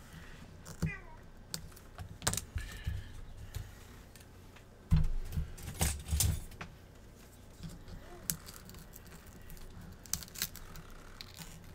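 Irregular clicks and crackles of a shattered iPad glass digitizer being pried and lifted off its adhesive with hand tools. They are loudest in a cluster about five to six and a half seconds in.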